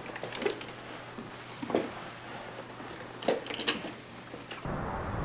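A few short knocks and rustles in a small room as people get up from rolling office chairs. Near the end a steady low rumble cuts in.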